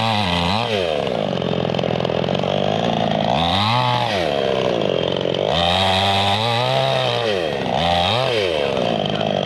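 Chainsaw engine running throughout, its pitch rising and falling again and again as it revs up and drops back.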